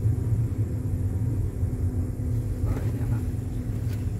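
Inside the cabin of an automatic sedan driving slowly: a steady low rumble of engine and tyres with a constant hum.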